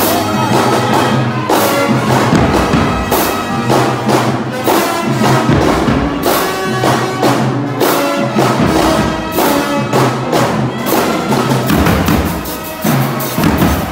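Marching band playing live: sousaphones and other brass hold low notes over a steady beat of bass drum and snare hits.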